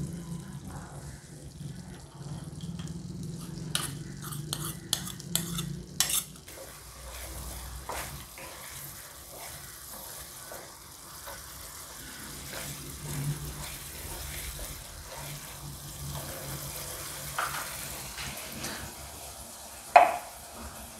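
Wooden spatula stirring and scraping thick tomato and coconut masala in a nonstick frying pan, over a low sizzle of the masala frying. A quick run of sharp clicks comes about four to six seconds in, and a single sharp knock near the end.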